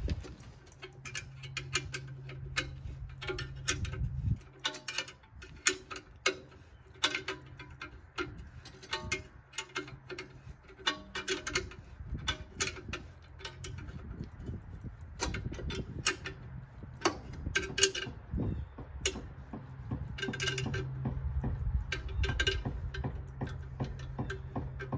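Ratcheting wrench clicking in short, uneven runs as the nuts on a muffler's exhaust flange are tightened.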